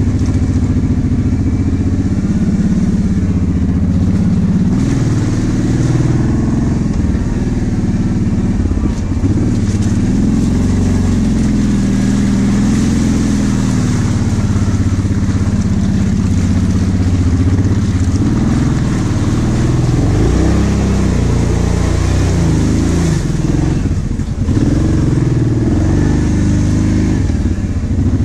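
Kawasaki KVF 750 Brute Force ATV's V-twin engine running under load, its pitch rising and falling continually as the throttle is worked over rough trail.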